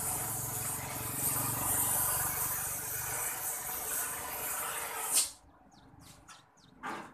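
Oxy-fuel gas torch hissing steadily, then shut off about five seconds in with a sharp pop. A few light metal clicks and a knock follow.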